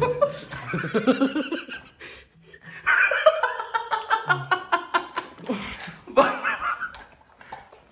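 Laughter in several bouts, in quick pulsing bursts.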